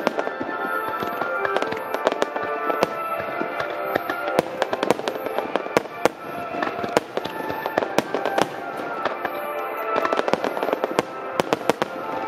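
A barrage of aerial firework shells bursting in quick succession, many bangs and crackles a second, with music playing alongside.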